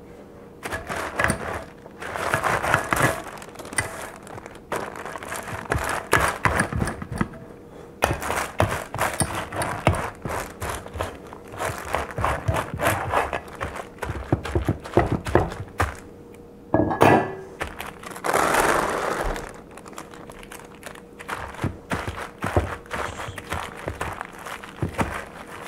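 Hands pressing parchment paper down over sticky granola in a metal sheet pan: irregular thunks and knocks of the pan against the board, with bouts of paper crinkling and rustling.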